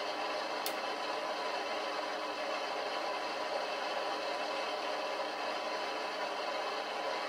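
Steady electronic hiss and hum from an EVP (electronic voice phenomenon) device running during a spirit-communication session. There is a single faint high click about two-thirds of a second in.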